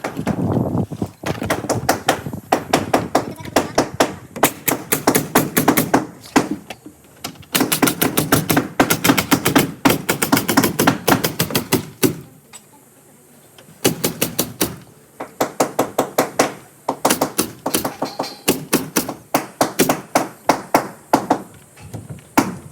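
Nail gun firing in quick runs of sharp clicks, several a second, each run lasting a few seconds with short pauses between.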